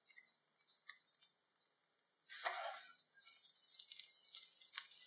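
Masala rice sizzling faintly in a hot pan, a steady high hiss with scattered light clicks. About halfway through there is a brief louder rustle as the rice is stirred with a wooden spatula.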